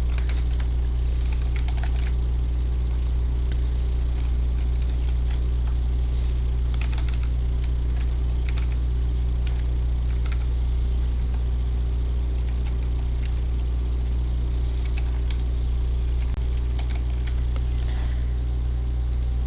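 Steady loud low hum with a thin high whine over it, unchanging throughout. A few faint clicks stand out about 7, 8.5, 10 and 15 seconds in.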